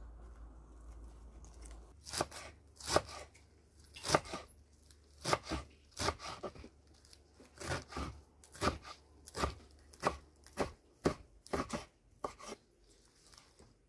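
Kitchen knife chopping lettuce on a wooden cutting board: a run of crisp, uneven chops, about two a second, starting about two seconds in and stopping shortly before the end.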